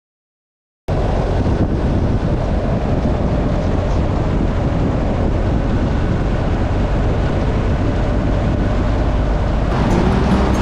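Motorcycle riding along at speed: the engine's steady low drone under heavy wind noise on the microphone, cutting in abruptly about a second in.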